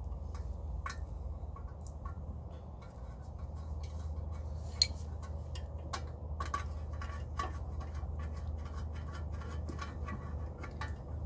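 Light metal clicking and clinking as bolts are fitted into a pocket bike with hand tools, with one sharp click about five seconds in and quicker ticking in the second half.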